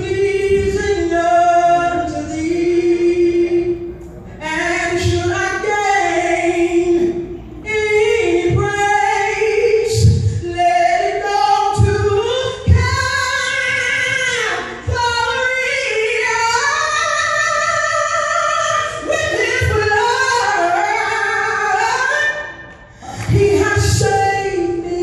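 A woman singing a gospel song, holding long notes and sliding through runs, with short pauses between phrases and low thumps of accompaniment underneath.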